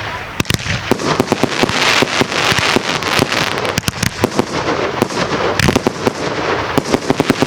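Fireworks going off in a rapid, continuous barrage of sharp bangs and crackles, many a second, over a hissing background.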